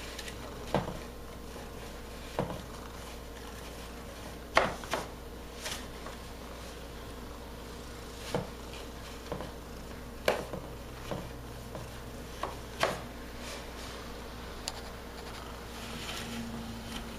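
Irregular cardboard taps and scuffs, about a dozen, as an orange tabby cat rubs its face against the flap of a shoebox it is lying in. A faint purr starts near the end.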